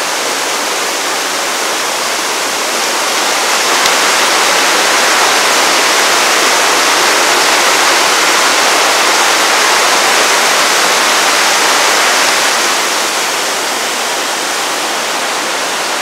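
Heavy rainwater pouring down through an open roof funnel like a waterfall, splashing into a koi pond: a steady rushing of water that grows louder a few seconds in and eases back a few seconds before the end.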